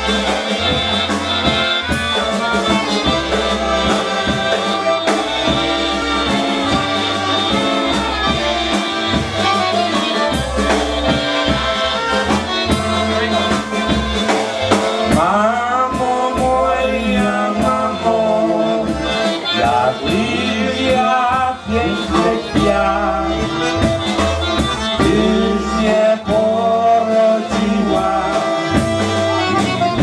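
Live polka band playing a waltz on accordion, trumpet, saxophone and drum kit. About halfway in, men's voices begin singing the song over the band.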